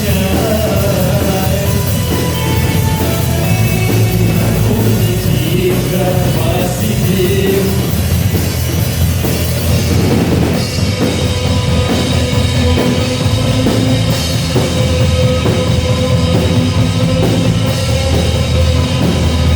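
Rock band playing a song, with a drum kit keeping the beat. About halfway through, the arrangement shifts to a steady held note over an even, pulsing rhythm.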